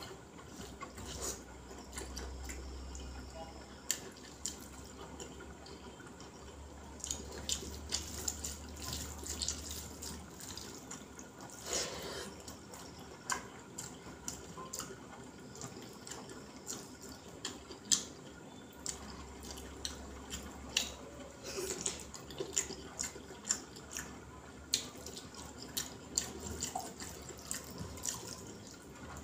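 Close, wet eating sounds of rice mixed with sambar being eaten by hand: chewing and lip smacking with many short, irregular clicks, and now and then a longer, louder wet sound.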